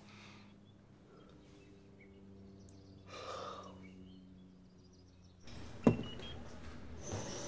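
A low steady hum with a short breathy sound partway through. After a sudden change, a sharp knock is the loudest moment. Then a treadmill runs, its motor whining steadily with regular footfalls on the belt.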